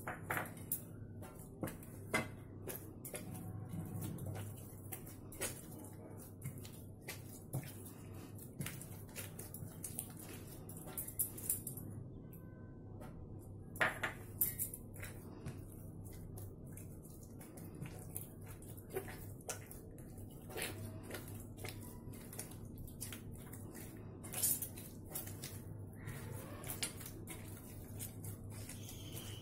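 Hands kneading soft bread dough in a stainless steel plate, with scattered light clicks and knocks of hands and dough against the steel, over a low steady hum.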